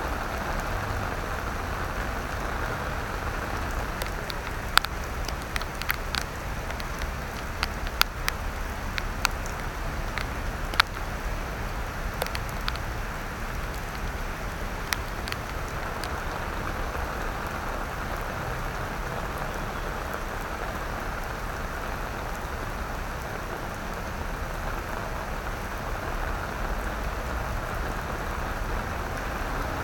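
Steady rain falling on wet paving, an even hiss, with scattered sharp ticks like drops striking something close by between about 4 and 15 seconds in.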